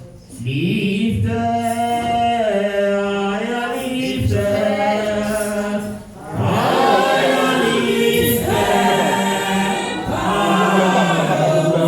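Group of voices singing together in long held phrases, with short breaks at the start and about six seconds in.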